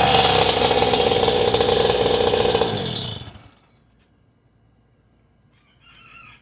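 GoPed GSR 40 two-stroke engine on a converted outboard boat motor, running steadily at high revs, then shut off about three seconds in and dying away to near silence. A brief faint call, like a cat's meow, comes near the end.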